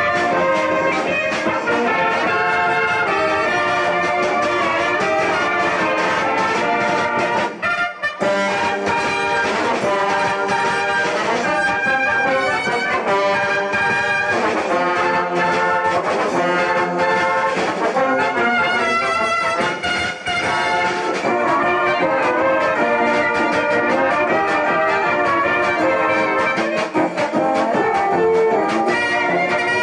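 Wind band playing brass music, with trumpets and trombones carrying the tune. The music breaks off briefly about eight seconds in and again around twenty seconds.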